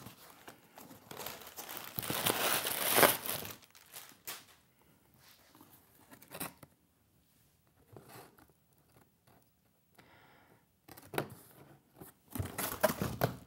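Packing tape tearing as the flaps of a cardboard box are pulled open, loudest about two to three seconds in. Then scattered clicks and cardboard and packing material rustling and crinkling as a hand reaches into the box, picking up again near the end.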